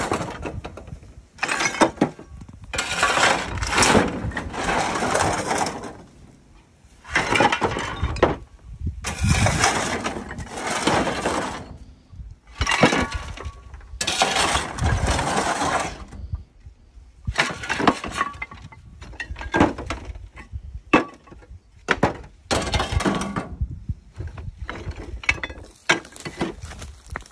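Broken terracotta roof tiles clattering and clinking as a shovel scrapes them off a trailer bed and they are tipped into a wheelbarrow. The sound comes in repeated bursts a second or two long, with sharp knocks between them.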